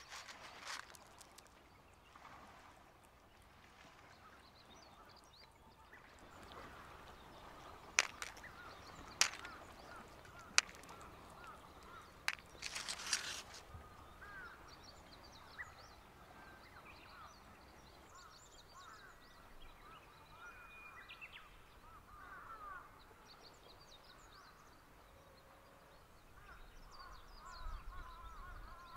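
Quiet ambience with small birds chirping on and off, broken by three sharp clicks and a brief rustle of dry cat kibble being handled on a paper plate about twelve seconds in.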